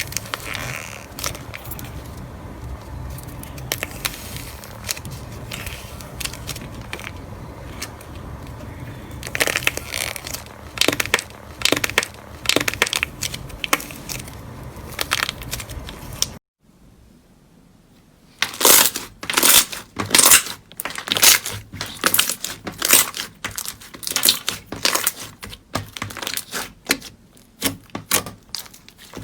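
Crunchy slime being squeezed and pressed, giving crisp crackling crunches. For the first half or so they are softer and sit over a low steady hum, thickening into a dense run. After a short pause they return louder and sharper in quick bursts.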